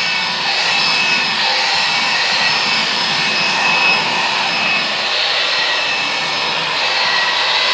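Vacuum cleaner running steadily with a faint high whine, being passed over a cat's fur as a grooming massage.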